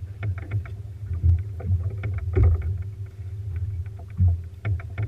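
Fishing boat on open water: a low, uneven rumble with a faint steady hum, broken by frequent irregular knocks and slaps.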